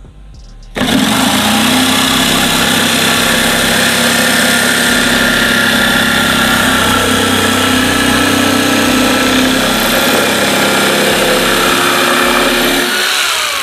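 Electric jigsaw switched on about a second in and running steadily at its speed-4 setting while cutting a curved pattern through thin plywood, then switched off near the end, its motor winding down.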